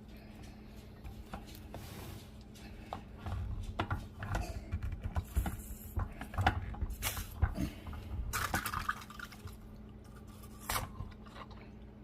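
Jalapeño ferment jar being burped: the lid is worked to let out built-up fermentation gas, with a run of clicks, knocks and liquid sounds busiest between about three and nine seconds in, and one more click near eleven seconds.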